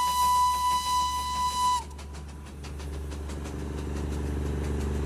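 A train whistle holds one long, steady high note that cuts off a little under two seconds in. Then a locomotive engine runs with a steady low hum that slowly grows louder.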